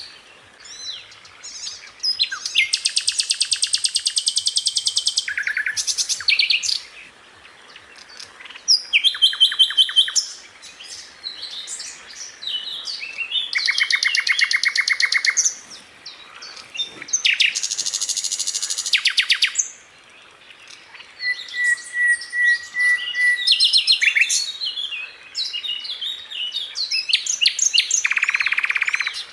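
Sikatan londo flycatcher singing: bursts of very fast rattling trills, each lasting one to three seconds, repeated with short pauses filled by sharp, high chirps.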